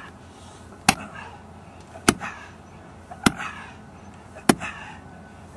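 Sharp clicks repeating evenly, about one every 1.2 seconds, over a low steady background.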